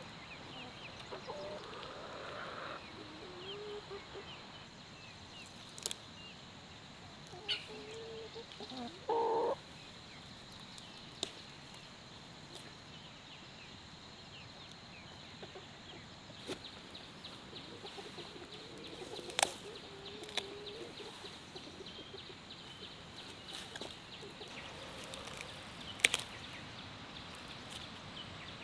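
Free-range chickens clucking: short calls a little after the start, around eight to nine seconds in and again around eighteen to twenty seconds. A few sharp knocks, the loudest late on.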